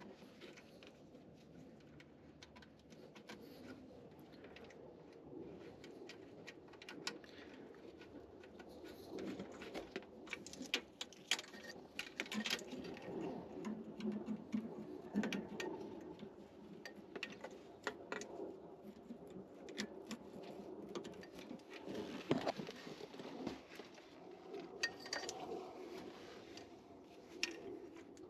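Scattered light clicks, taps and knocks of hand work on pool-heater parts, over a low, uneven background sound. The taps are sparse at first and come thick and fast from about a third of the way in.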